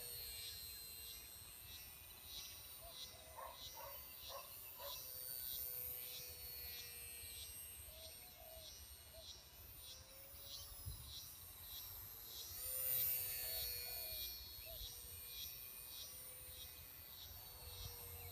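E-flite micro P-40 Warhawk RC plane flying overhead: its small electric motor and propeller give a faint high whine that rises and falls, swelling about two-thirds of the way through. A steady rhythmic chirping about twice a second runs underneath.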